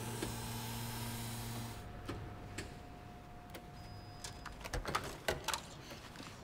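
A steady low mechanical hum cuts off suddenly about two seconds in. A faint thin tone follows, then a quick run of sharp mechanical clicks and clacks about five seconds in.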